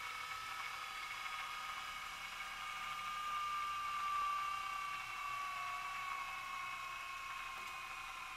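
High-pitched electric whine from the walking cube robot's motor, several steady tones that slowly sink in pitch.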